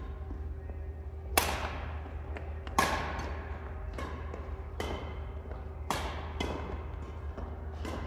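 Badminton rally: a string of sharp racket-on-shuttlecock hits about a second apart, each ringing briefly in the hall, over a steady low hum.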